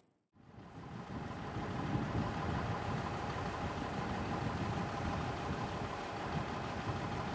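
Heavy recovery truck's engine idling steadily, with a faint whine over the rumble. It starts after a brief silence and builds over the first couple of seconds.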